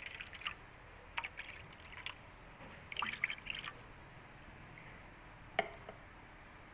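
Spicy seblak broth simmering in a pan, with a handful of small, scattered bubbling pops and blips.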